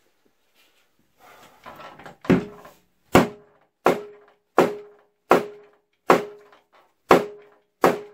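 Mallet blows knocking the Honda VFR400 NC30's rear wheel off its hub, about eight hard strikes in an even rhythm a little under a second apart, each ringing briefly at one pitch. The wheel is stuck on its locating pins.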